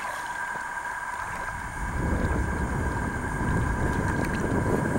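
Steady high-pitched chorus of night insects, joined about two seconds in by a low rumbling on the microphone.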